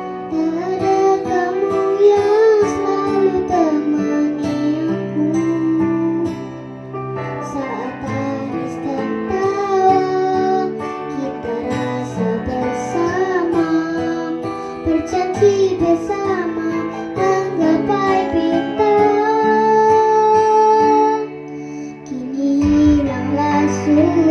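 A singer voicing a slow Indonesian pop ballad over instrumental backing, the voice of someone practising with a cough and cold. The sung phrases break for a moment about 22 seconds in.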